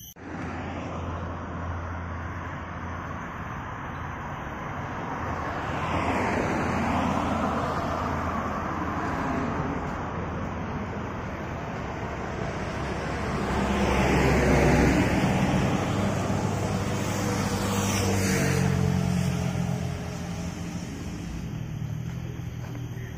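Road traffic on the adjacent road: a steady hum of cars, with vehicles passing close by three times, each swelling and fading, the loudest about fourteen seconds in. During the last pass an engine note drops in pitch as the vehicle goes by.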